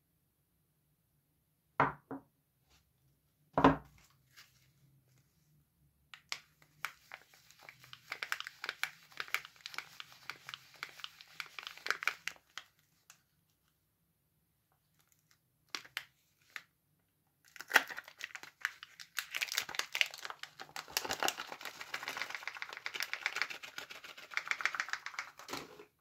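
A bar of soap's printed paper wrapper being crinkled and torn open, in two stretches of crackling, from about six seconds and again from about eighteen seconds. Two sharp knocks come before it, in the first four seconds.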